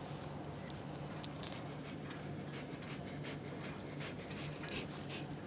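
A corgi breathing quietly, with faint rustling as a gloved hand holds its lips back, over a steady low hum. Two short sharp ticks come under a second in and again about half a second later.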